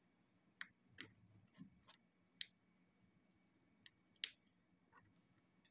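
Small, sharp clicks from an iPhone 7 Plus's flex-cable connectors being pressed onto the logic board by fingertip. There are about half a dozen, the loudest about two and a half and four seconds in.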